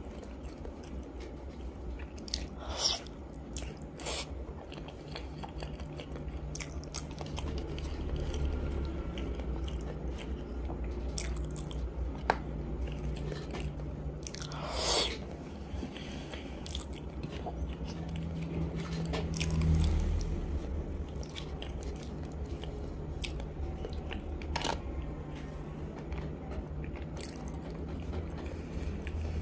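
Close-miked chewing and biting of peeled hard-boiled egg, with sharp mouth clicks and smacks scattered through; a low steady hum underneath.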